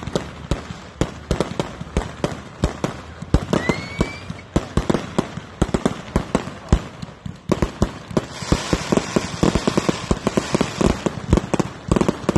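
Consumer multi-shot firework cakes firing a finale: rapid launch thumps and aerial bursts several a second. About four seconds in there is a brief rising whistle, and from about eight seconds a dense crackling hiss fills in behind the shots.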